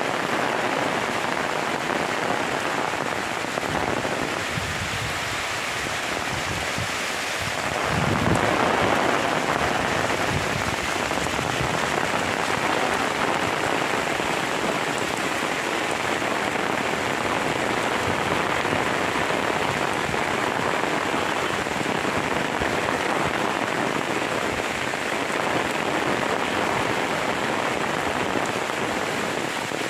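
Steady rain falling on a coconut grove, an even hiss that swells a little louder about eight seconds in.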